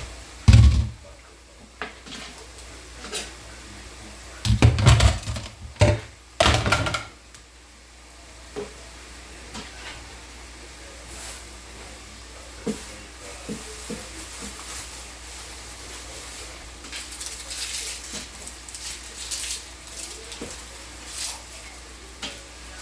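Kitchen clatter of dishes, pots and utensils being handled and set down during cleanup: several loud knocks in the first seven seconds, then lighter scattered clicks. Under it, a pan of vegetables in oil and flour sizzles faintly.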